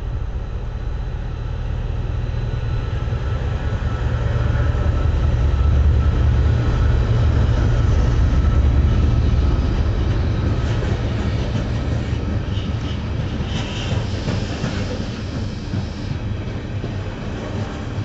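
Two Class 68 diesel locomotives, each with a Caterpillar V16 engine, pass under power with a heavy low engine rumble that swells and peaks about six seconds in. A long train of wagons loaded with concrete sleepers then rolls by, its wheels clicking over the rails with a few brief high squeals.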